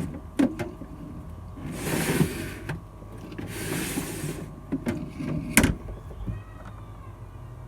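Timber fridge slide being run out and pushed back along its runners: two long scraping slides about a second each, with sharp wooden knocks between them, the loudest about five and a half seconds in.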